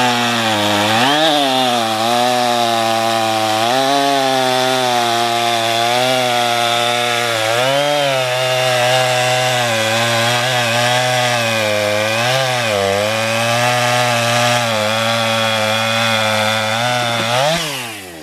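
Stihl two-stroke chainsaw running at full throttle through a large pecan log, its pitch sagging briefly every few seconds as the chain bites, then the throttle is let off and the engine winds down near the end as the cut is finished.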